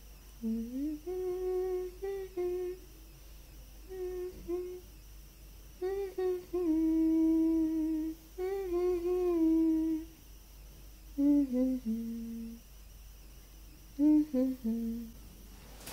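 A woman humming a tune to herself in about six short phrases with held notes and gaps between them.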